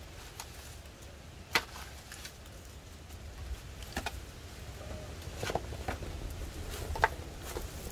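Hand tool digging into mud to free a truck's bogged front wheel: a few separate sharp knocks and scrapes, spaced a second or more apart, over a low steady rumble.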